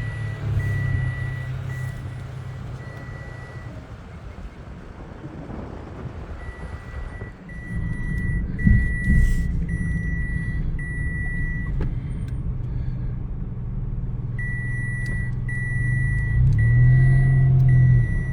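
A car's warning chime beeping over and over at a high pitch, a little more than once a second, in three spells: at the start, from about six to twelve seconds in, and again from about fourteen seconds on, over the steady hum of the engine and road inside the cabin. A couple of sharp thumps come about nine seconds in.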